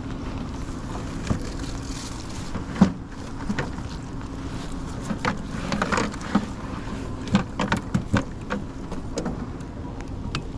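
A steady low hum on a small fishing boat, with irregular knocks, taps and clatter of gear being handled on board.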